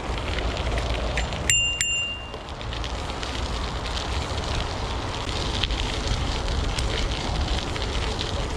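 Gravel bike's tyres rolling over a gravel track with wind on the microphone. About a second and a half in, a bicycle bell is rung twice in quick succession, ringing briefly.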